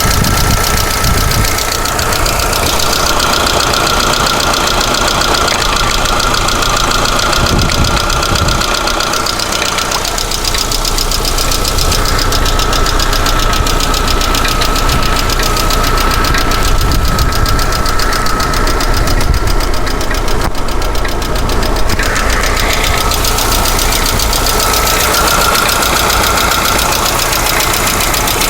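Lada Vesta 1.6 engine running steadily with a fast, even ticking knock from its hydraulic valve lifters, the sign of failing lifters. A steady high whine runs underneath.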